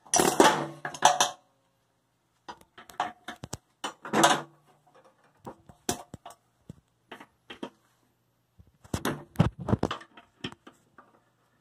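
A short burst from a pneumatic air hammer with an extended bit on a mower deck spindle, working at the spindle bearings, followed by scattered metal clinks and taps of tools on the steel deck, with louder clusters of clatter about four seconds and about nine seconds in.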